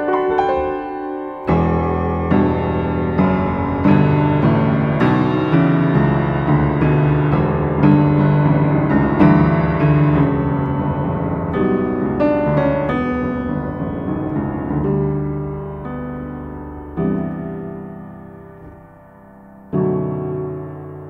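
Yamaha U7H upright piano playing a slow piece: notes and chords struck about once a second over ringing low notes, the texture thinning and fading from about two-thirds of the way through, then two fresh chords struck and left to ring near the end.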